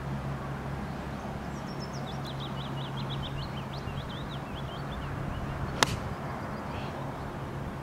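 A golf club strikes a teed ball once in a tee shot: a single sharp click about six seconds in. Before it a bird gives a quick run of high chirps, over a steady low hum.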